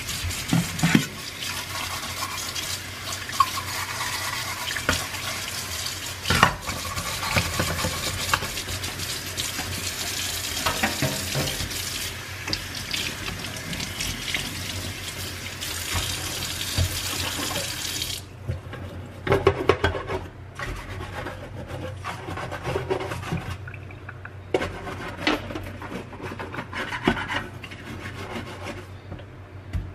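Kitchen tap running into a stainless steel sink while a bristle bottle brush is rinsed and rubbed under the stream. About two-thirds of the way through, the running water stops, leaving brief scrubbing rustles and light knocks in the sink.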